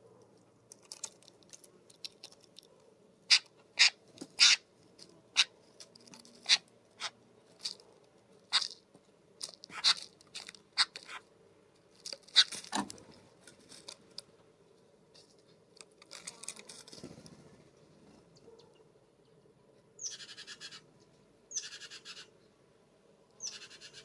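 California scrub-jay pecking and hammering at food on a wooden log, a quick run of sharp taps, followed near the end by three harsh, rasping calls.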